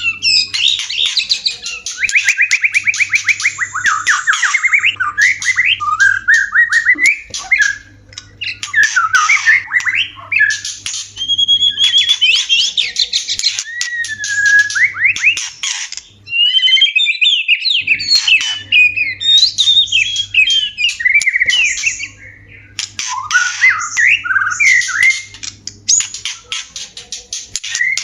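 White-rumped shamas (murai batu) in breeding condition singing and calling: fast, varied phrases of whistled glides, rapid trills and clicks, broken by short pauses.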